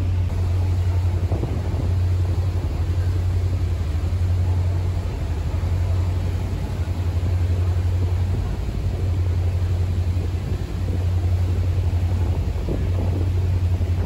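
Ferry's diesel engine running under way, a steady low drone, with wind noise on the microphone.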